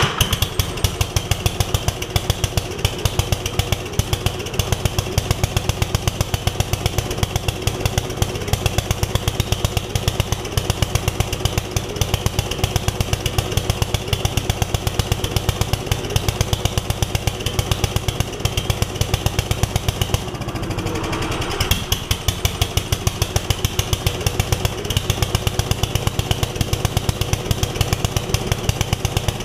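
Kohler engine of a Gravely 5665 walk-behind tractor running with a steady row of sharp firing pulses, faltering for about a second some twenty seconds in, then picking back up. It runs only on full choke with too much fuel dumping into the carburetor, a flooding fault traced to a failing fuel pump.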